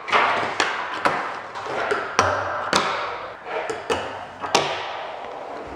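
A fingerboard rolling on a wooden ramp, with a string of sharp clacks as the small board pops, lands and hits the ramp and a handrail.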